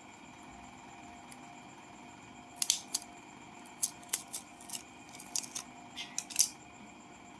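Scissors snipping adhesive-backed material: a run of about ten short, sharp cuts, starting about two and a half seconds in and ending with the loudest snip near the end.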